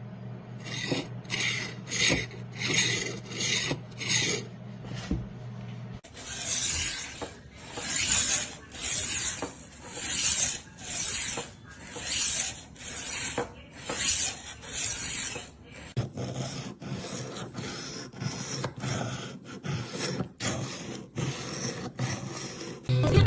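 Rolling knife sharpener rolled back and forth along a steel knife edge, its abrasive disc rasping in repeated strokes. The strokes come about twice a second at first and again over the last part, and are longer and slower in the middle.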